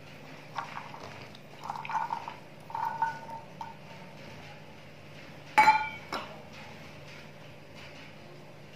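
Soaked chickpeas tipped out of a stainless steel bowl onto a cloth and spread by hand: soft patters and taps with the bowl ringing briefly, and one sharp metallic clink of the bowl a little past halfway.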